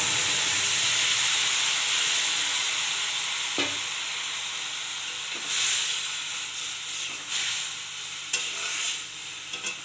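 Freshly boiled, wet spinach and vegetables sizzling hard in hot oil in a kadai. The sizzle slowly dies down, then flares again a little after halfway as a metal spatula stirs them, with a few sharp taps of the spatula on the pan.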